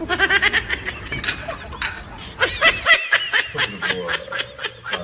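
People laughing in quick repeated bursts of chuckling and snickering, with a short break about three seconds in.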